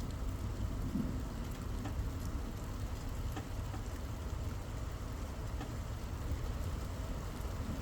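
Steady rain falling, with scattered drops ticking close by over a low, steady rumble.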